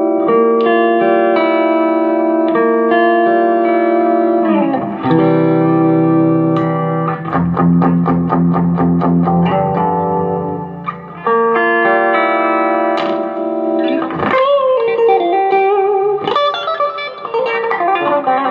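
Electric guitar played through a Marshall MG15 practice combo amp: held chords changing about every second, then a run of fast repeated picked notes, then bent notes with vibrato near the end.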